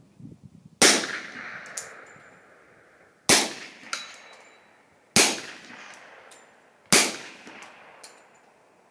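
Suppressed ATI FX45-K 1911 pistol in .45 ACP fired four times at an uneven pace, about two seconds apart, with subsonic 230-grain ball ammunition. Each shot is a sharp report with a reverberating tail. A fainter sharp sound follows the first two shots.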